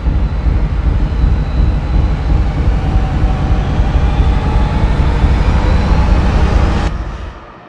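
A loud, steady, deep rumble with a hiss over it, fading out near the end.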